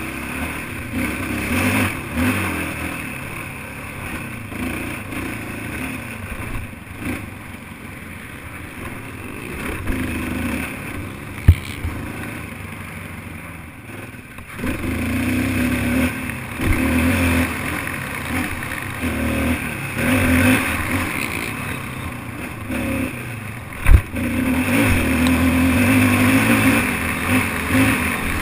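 Racing quad (ATV) engine revving up and falling off again and again, with rattling and clatter, and two sharp knocks, one a little before the middle and one near the end.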